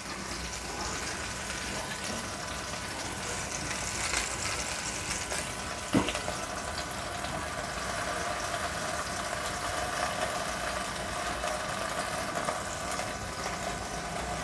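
Chicken skewers frying in a little oil in a covered pan: a steady, muffled sizzle with a few faint crackles, and a single sharp click about six seconds in.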